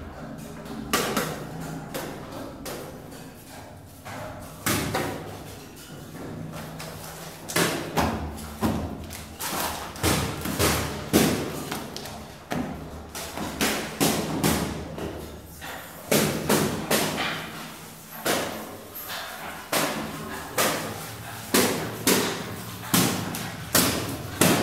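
Heavy thumps and knocks on a concrete spiral stairwell and its railings, echoing through the hollow tower. A few come at first, then they fall into a loose beat of about one to two a second.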